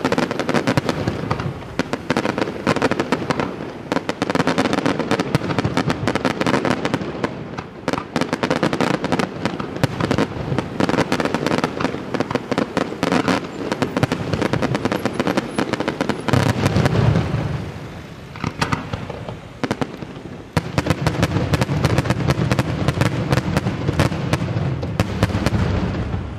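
Daytime fireworks display: a dense, continuous barrage of rapid bursts and cracking reports, many per second. It thins out briefly about two-thirds of the way through, then picks up again with a heavier low rumble.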